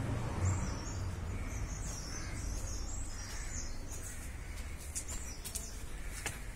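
Small birds chirping repeatedly, high-pitched, over a steady low background rumble, with a few faint clicks near the end.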